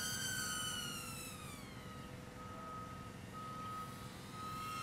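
BetaFPV Mobula 8 micro drone's brushless motors whining, their pitch falling away over the first two seconds as the throttle comes off. A steady high beep repeats about once a second throughout.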